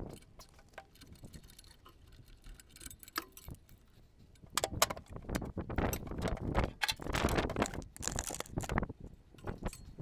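Metal tools and parts clinking and rattling as hands work in a welder/generator's engine compartment: a few scattered clicks at first, then busier, irregular clatter from about halfway through.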